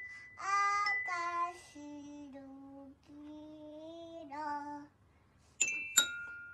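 A toddler singing several drawn-out notes, then two toy piano keys struck near the end, each note ringing on after the strike.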